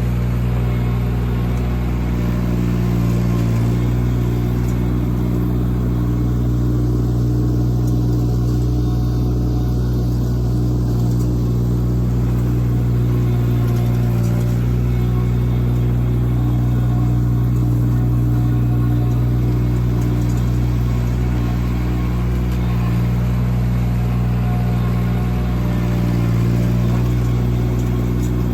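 Cormidi C1500 mini skid steer's engine running steadily at a set throttle as the machine works, its pitch holding nearly constant.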